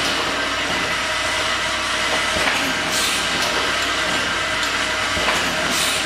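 Automatic filling, plugging, capping and labelling line for glass essential-oil vials running: a steady mechanical rattle and hum from its turntable, conveyor and drives, with light knocks, and two short hisses of air about three seconds apart from its pneumatic cylinders.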